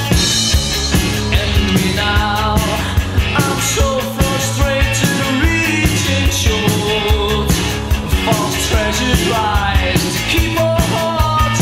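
1980s indie rock song played by a band, with a steady drum beat under guitar and a melodic lead line.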